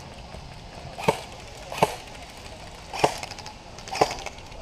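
Airsoft gun firing single shots, four sharp cracks spaced about a second apart.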